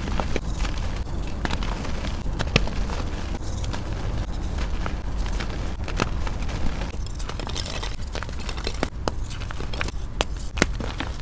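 Soft reformed Ader gym chalk crumbling and crushing in hands, a dense crackle with many sharp snaps as the chunks break into powder. About ten seconds in, a grey reformed chalk block is squeezed, with a few louder cracks.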